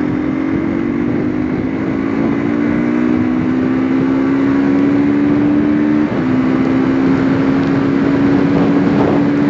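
Hero Xtreme 200R's carbureted single-cylinder engine accelerating hard, its pitch climbing steadily, with a brief break about six seconds in as it shifts up a gear. Wind rush on the microphone runs under it.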